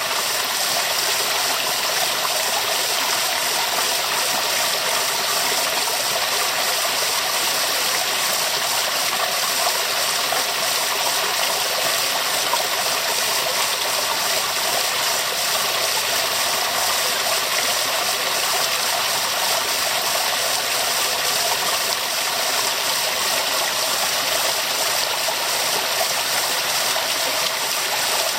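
Waterfall rushing steadily, an even hiss of falling water with little low rumble.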